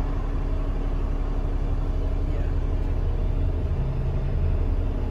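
Engine drone and road noise heard from inside a moving bus: a steady low hum over tyre and cabin rumble, growing a little stronger about three and a half seconds in.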